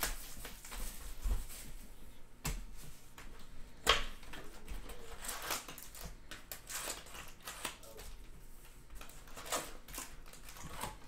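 Plastic shrink wrap being peeled off a 2017 Donruss Optic football card box, then the cardboard lid opened and foil packs handled: an irregular run of crinkles and light clicks, with one sharper snap about four seconds in.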